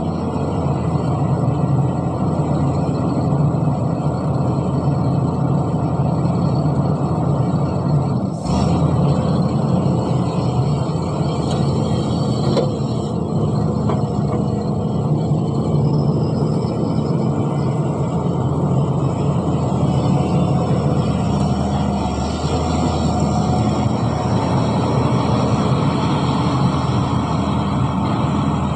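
Heavy earthmoving machinery's diesel engine running steadily under work, with a brief dip and click about eight seconds in.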